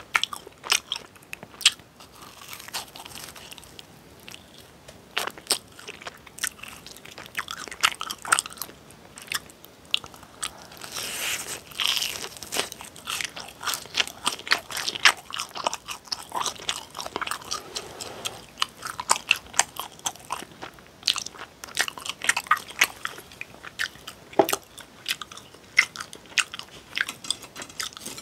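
Close-miked crunching and chewing of crispy deep-fried snacks: many sharp, crackly crunches as the fried coating is bitten and chewed.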